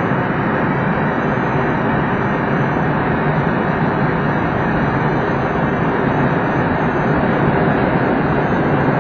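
Steady rush of airflow around a glider's cockpit canopy, heard from inside the cockpit, while the unpowered glider descends on its landing approach. It grows slightly louder near the end.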